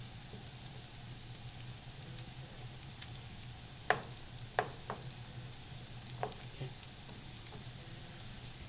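Diced onions sizzling in butter and olive oil in a nonstick sauté pan, stirred with a wooden spoon that knocks sharply against the pan a few times about halfway through. A steady low hum sits under the sizzle.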